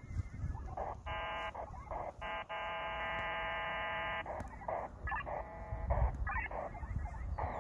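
A buzzing tone in several bursts, the longest held steadily for about two seconds near the middle, with short wavering chirps before and after.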